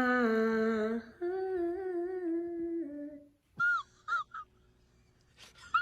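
A person humming or crooning two long held notes, each sliding down a little. After a short pause come a few brief high-pitched squeals.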